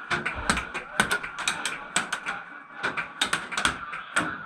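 Airsoft gun firing a quick, irregular string of shots: sharp mechanical clicks, some in fast clusters, throughout.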